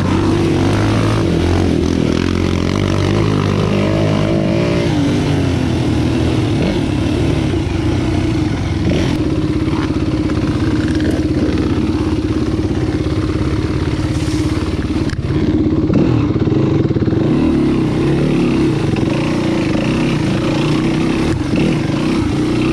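Enduro dirt bike engine running while riding. Its pitch rises and falls over the first few seconds, then holds steady.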